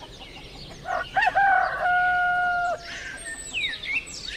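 A rooster crows once, a long call held steady about a second in, then small birds chirp.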